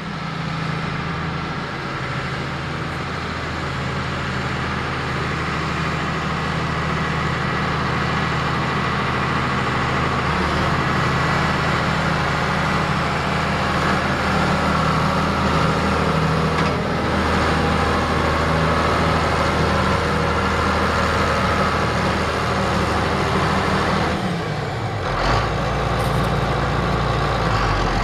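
1980 John Deere 8440 4WD tractor's 7.6 L six-cylinder turbo diesel running steadily as the tractor drives across a field. About 24 seconds in the engine note dips briefly and then settles lower.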